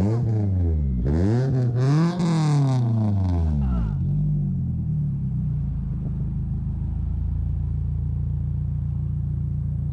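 A Scion tC's 2.5-litre four-cylinder engine being revved: one rev falls away at the start, a second rev rises and falls with a peak about two seconds in, and the engine then settles to a steady idle.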